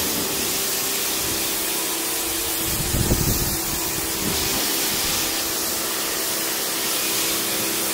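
Kärcher electric pressure washer spraying: a steady hiss of the high-pressure water jet over the hum of its pump motor, briefly louder and deeper about three seconds in.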